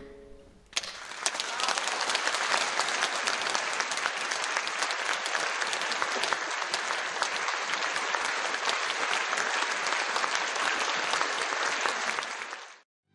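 Audience applauding: dense, steady clapping that begins about a second in after a brief hush and cuts off suddenly near the end.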